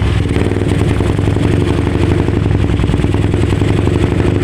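Suzuki Raider motorcycle engine running steadily through a Taikom aftermarket power-pipe exhaust, its exhaust note holding an even speed with no revving.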